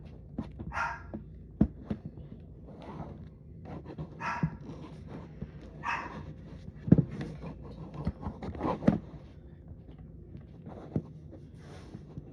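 A dog barking a few short, separate times, among knocks and clatter, the loudest knocks about seven and nine seconds in.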